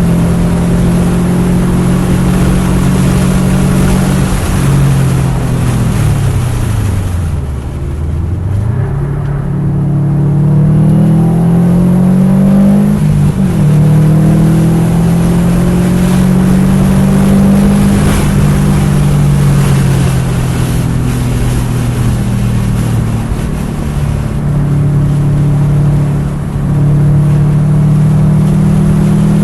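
2021 Subaru WRX STI's turbocharged 2.5-litre flat-four, fitted with a Blouch 20G-XTR turbo, running hard on track at high revs. About six seconds in the revs fall steeply under braking and downshifts, then climb again under acceleration, with further shifts later on.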